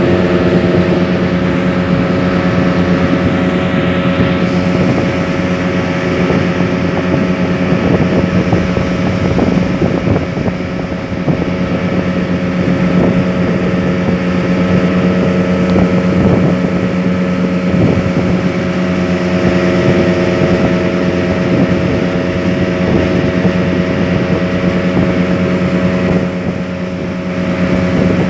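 Motorboat engine running steadily at a constant speed, with water and wind noise over it; it drops slightly in level briefly near the end.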